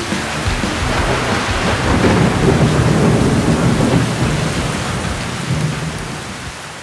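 Thunder rumbling over steady heavy rain, swelling for a few seconds and then slowly fading.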